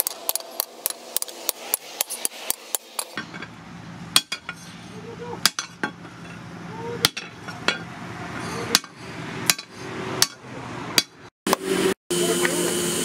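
Hammer blows on red-hot leaf-spring steel on an anvil, forging a machete blade: a quick run of about four strikes a second for the first three seconds, then slower single blows a second or more apart, each ringing briefly.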